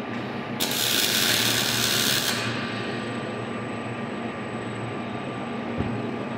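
Robotic MIG welding torch arc burning for a short weld of under two seconds, a loud hissing crackle that starts about half a second in and cuts off suddenly. A steady machine hum runs underneath as the robot arm moves the torch to the next joint of the truss.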